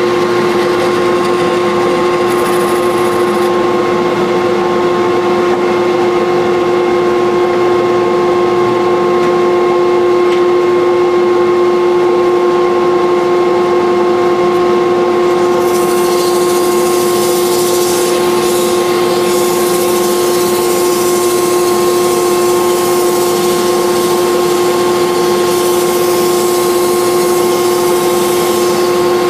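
Wood lathe running with a steady whine as a wooden knife handle is turned. About halfway through, a steel blade is held against the spinning wood and a scraping hiss joins in.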